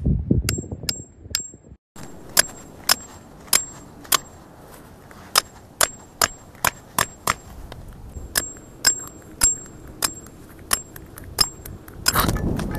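Claw hammer driving a metal tent stake into the ground, about twenty sharp clanks in quick groups, each with a short high metallic ring. Wind rumbles on the microphone at the start and again near the end.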